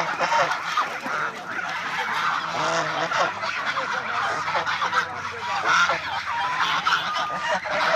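A flock of domestic geese honking, many calls overlapping without a break.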